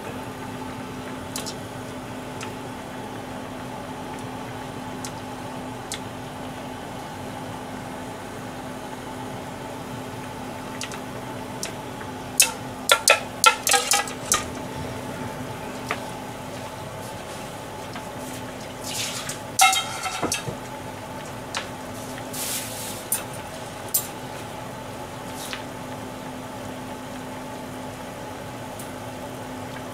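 A frying pan of dried-herring nishime simmering on a gas stove over a steady low hum. A metal mesh skimming strainer clinks against a metal pan in a few quick clusters, about halfway through and again a few seconds later.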